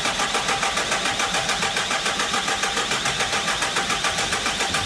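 Hyundai Porter diesel engine turning over on the starter in an even rhythm, cranked after a shot of aerosol starting fluid into the breather hose, and not yet catching.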